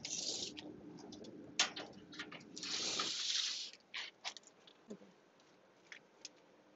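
Steel tape measure being pulled out and handled: two hissing rasps of the blade, about three seconds apart, with a scatter of light clicks.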